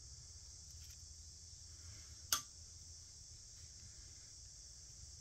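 Quiet handling of a Slick Trick broadhead as it is threaded onto an arrow's insert: faint steady background hiss, with one short sharp click about two and a half seconds in.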